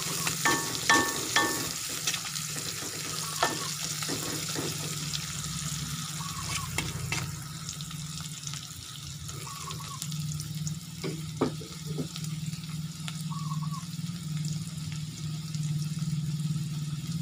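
Sliced garlic and shallots sizzling steadily in hot oil in a wok, with a metal spatula scraping and clinking against the pan in the first two seconds.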